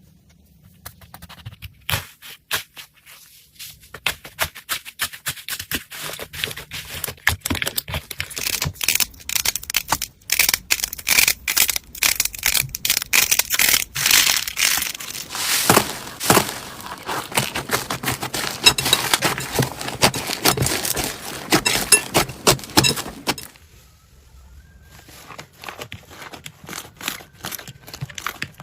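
Slime being handled by hand: dense, irregular crackling and popping clicks, busiest through the middle. The crackling stops suddenly about three-quarters of the way in, and softer, sparser clicks follow.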